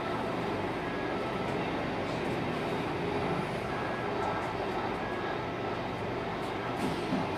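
Scania K280UB bus's 9.3-litre five-cylinder DC9 diesel engine and ZF Ecolife automatic driveline heard from inside the passenger cabin, a steady engine note with road and cabin rumble.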